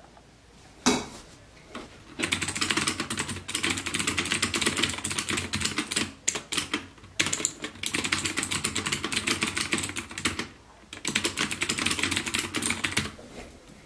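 Fast typing on a Das Keyboard mechanical keyboard: a rapid stream of key clicks in three runs with two short pauses.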